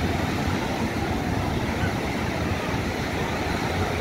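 Sea surf breaking on a sandy beach: a steady, continuous rush of waves with a low rumble.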